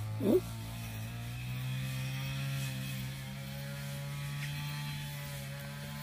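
Brush cutter engine running at a steady speed, an even drone, with one short, loud yelp-like sound just after the start.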